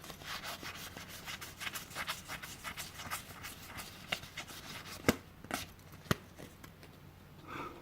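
Hands handling a stack of board game cards: soft rubbing and light clicks as the cards slide and are flipped, with a few sharper taps about five to six seconds in.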